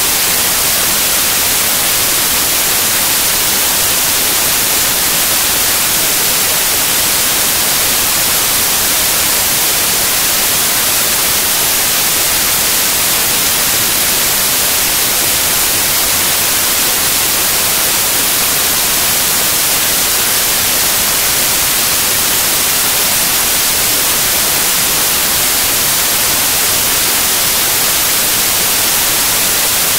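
Loud, steady hiss of white-noise static, unchanging and stronger in the treble, with no other sound in it.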